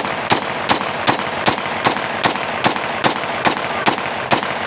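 A .30 bore (7.62×25mm Tokarev) pistol being test-fired, a steady string of about a dozen evenly paced shots at roughly two and a half a second, which stops shortly before the end.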